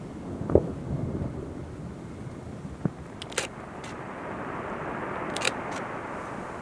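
Aerial fireworks shells bursting over a continuous low rumble: a loud boom about half a second in, a smaller one near three seconds, and sharp cracks around three and a half and five and a half seconds.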